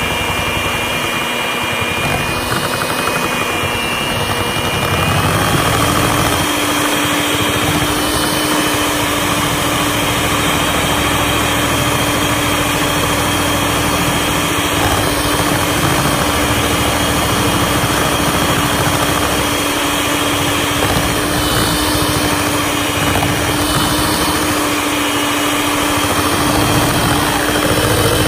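Electric hand mixer running steadily, its beaters whipping thick shea butter cream in a steel bowl; the motor hum steps up slightly in pitch about five seconds in.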